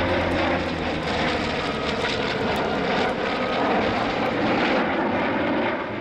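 Aircraft engine noise from an F4U-5 Corsair's radial piston engine and its propeller as it flies in formation with an F/A-18 jet fighter. The sound is a steady drone, and a low hum fades out about a second in.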